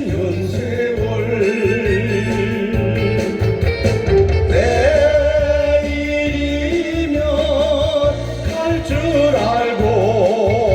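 Instrumental introduction of a song played over a loud amplified sound system: a steady pounding bass beat under a lead melody that wavers with vibrato, before any lyrics are sung.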